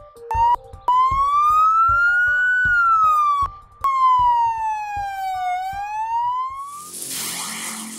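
Feniex Storm Pro 100-watt electronic siren sounding a slow wail through its speaker, triggered momentarily by the vehicle horn: the pitch rises slowly, falls, and rises again, with a brief break in the middle, then cuts off near the end into a burst of rushing noise. A music beat runs underneath.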